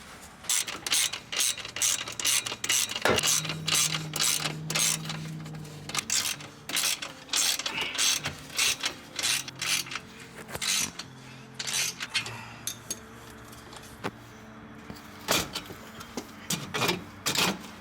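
Hand ratchet wrench clicking in quick runs, tightening the clamp on a titanium exhaust, with a short pause about three-quarters through.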